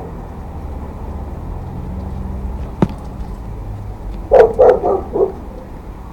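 A dog barking about four times in quick succession a little past the middle, over a steady low rumble, with one sharp click shortly before.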